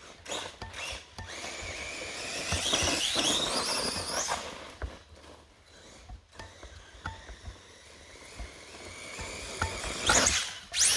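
Redcat Volcano electric RC monster truck's motor whining and rising in pitch as it speeds up, then easing off. Near the end a loud burst of tyre and dirt noise comes as the truck hits the jump and launches.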